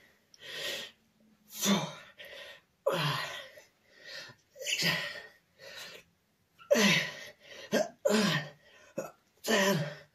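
A man's sharp, grunting exhales of effort, one with each rep of sandbag bicep curls, coming about once a second and each falling in pitch.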